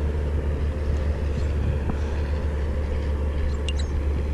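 Steady low rumble with a few faint clicks.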